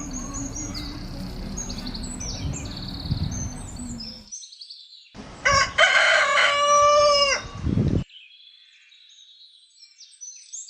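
Small birds chirping in quick repeated notes over a low background noise, then, after a brief silent break, a rooster crows once, loud and about two seconds long, its pitch dropping at the end. Faint bird chirps follow.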